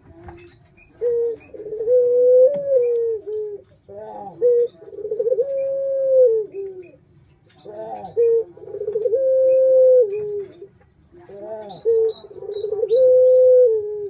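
Puter dove (Barbary dove) cooing: four phrases about every three and a half seconds, each a short lead-in note followed by a long, rolling coo.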